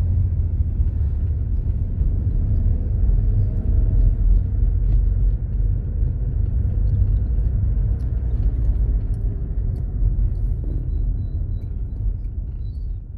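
Steady low rumble of a moving car, engine and tyres on the road, heard from the car the recording is made in.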